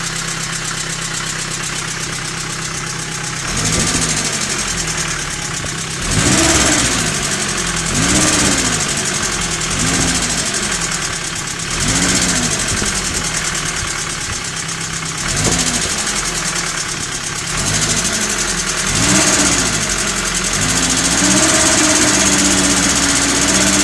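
ZMZ-405 four-cylinder petrol engine idling, then revved in short blips about every two seconds, and held at raised revs near the end. The engine has a knock and rustling noise of unknown origin, with the hydraulic lifters tapping.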